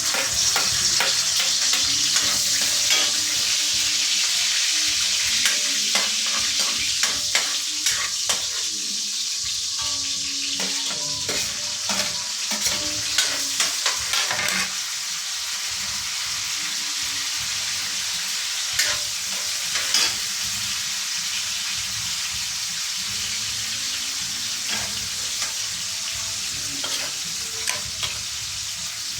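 Eggplant sizzling loudly in hot oil in a pan, the sizzle easing gradually over time. Utensil scrapes and clicks against the pan come in clusters as it is stirred, thickest in the first half.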